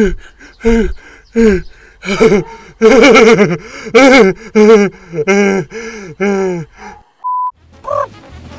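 A man's voice moaning and groaning with pleasure, about ten drawn-out 'oh's and 'ah's in a row that rise and fall in pitch. They stop about seven seconds in, and a short single-tone beep follows.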